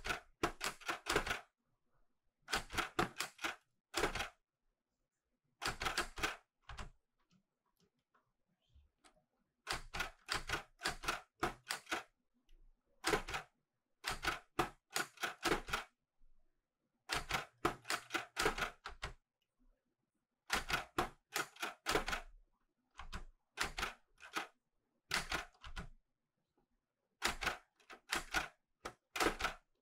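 Clover 810S typewriter being typed on in short bursts: runs of rapid clacks as the typebars strike the paper, separated by pauses of a second or more.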